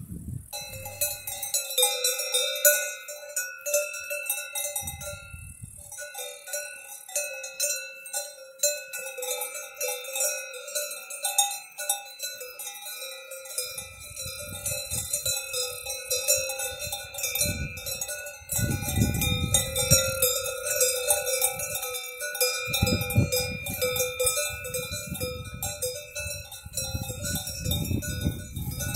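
Many cowbells on grazing cows ringing continuously, their overlapping tones mixed with quick clanks.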